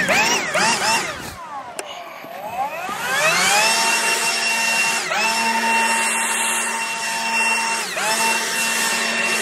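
Ryobi leaf blower's fan whine, revved up and down in quick pulses at first, then ramping up to a steady high pitch while blowing grass clippings off concrete. The pitch drops briefly twice, about five and eight seconds in, as the trigger is eased.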